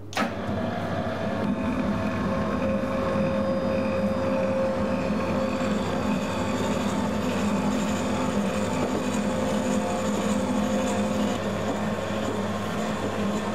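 Electric pasta extruder starting with a click, then its motor and gearbox running steadily with a hum while it pushes dough through a bronze die. The machine is not yet up to temperature, so the pasta comes out dry and brittle.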